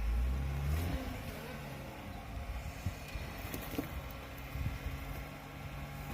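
Mercedes-Benz Unimog's diesel engine running as the truck drives over rough off-road ground, loudest in the first second, with a few short knocks.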